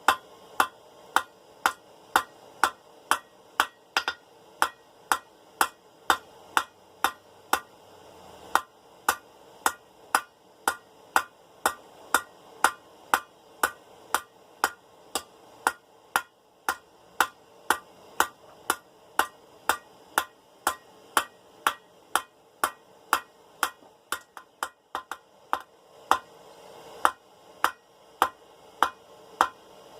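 Hand hammer striking a hot 1/2-inch round steel bar on an anvil in a steady rhythm of about two blows a second, each with a short metallic ring, rounding up an eight-sided tapered point. The blows pause briefly about eight seconds in and turn to lighter, quicker taps around twenty-four seconds in.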